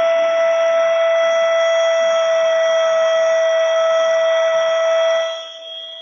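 Cordless 3-in-1 mini vacuum/air duster running, a steady high whine over a rush of air, sucking dust from a keyboard through its nozzle attachment. About five seconds in the rush of air drops away sharply, leaving the motor's whine more quietly.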